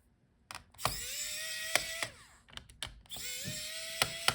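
Small electric screwdriver backing out laptop heatsink screws: its motor runs twice, each time rising in pitch as it spins up and then holding steady for about a second before stopping. A sharp click comes during each run, with a few light ticks between the runs.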